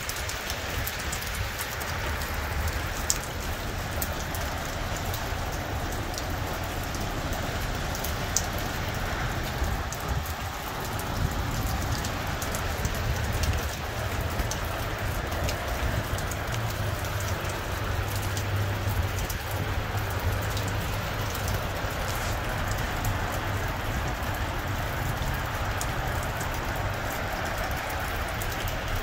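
Steady rain falling on pavement and lawn, with many small scattered drop ticks over a low, even rumble.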